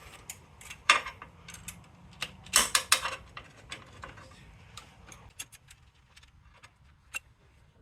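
Metal-on-metal clicks and clinks of a wrench working the clutch cable's adjuster nuts to take up the cable's slack. The loudest knocks come about a second in and near three seconds, followed by lighter, scattered ticks.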